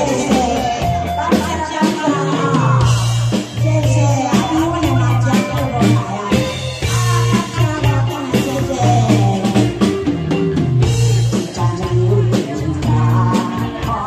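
Amplified live music with a steady bass-and-drum beat and guitar, and a woman singing through a microphone.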